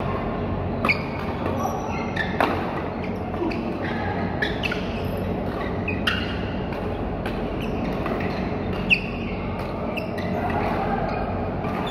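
Badminton rally: sharp cracks of rackets hitting the shuttlecock every second or two, with short squeaks of shoes on the court mat, over a steady low hum of a large indoor hall.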